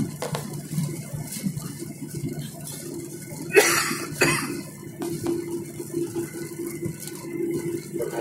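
Jet airliner cabin noise during the landing roll on the runway with the ground spoilers up: a steady rushing roar over a low hum. Two short, loud bursts of noise stand out about three and a half and four seconds in.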